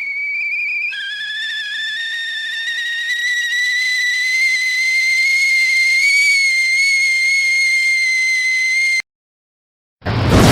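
A long, high, steady whistle tone. About a second in it drops in pitch, then slowly rises back over several seconds, and it cuts off suddenly. A moment later, just before the end, a loud burst of noise begins.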